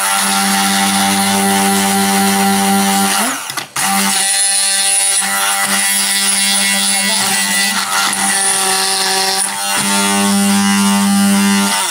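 Silvercrest hand blender's motor running at speed 2, its blade blending ice cubes with milk and fruit in a plastic beaker. It is a steady hum that stops briefly about three seconds in, then runs on until just before the end.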